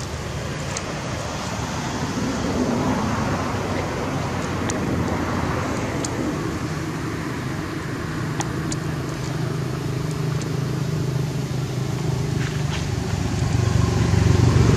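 A motor engine running steadily: a low, even hum under a rushing noise, growing a little louder near the end, with a few faint short high clicks.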